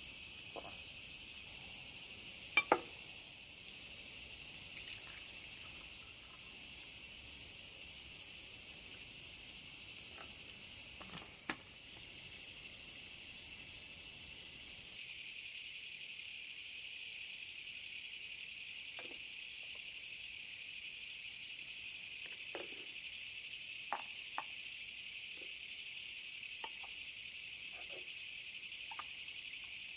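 Summer night insect chorus: a steady high chirring that drops slightly in level about halfway through, with a few light clicks and taps of glassware and dishes being handled on a wooden table.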